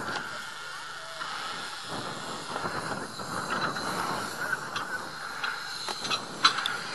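Small narrow-gauge steam tank locomotive standing with steam up, hissing steadily. A few sharp clicks come near the end.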